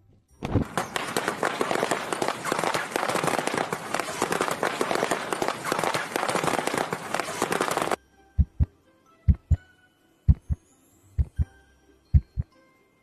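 A dense crackling noise for about eight seconds that cuts off suddenly. It is followed by a heartbeat-like sound effect: pairs of short low thuds, about one pair a second.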